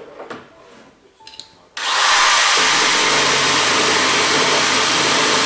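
Power drill drilling a hole through the door lock switch mounting plate on a car door, after a few light handling knocks. The drill starts suddenly about two seconds in, runs steadily and cuts off suddenly.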